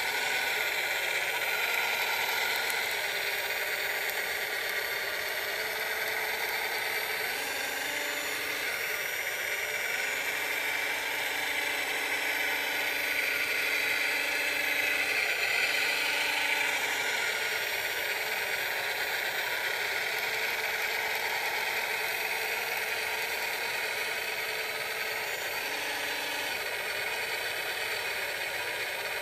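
Radio-controlled scale model Caterpillar wheel loader working: a steady high whir of its electric motors and gearing, with a lower hum cutting in and out several times.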